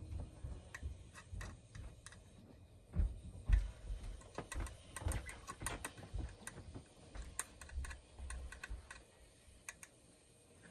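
Light, irregular clicks and taps of fingers handling a small plastic model building and a clear plastic tub while sprinkling flocking and pressing it into glue, with a couple of louder thumps about three seconds in.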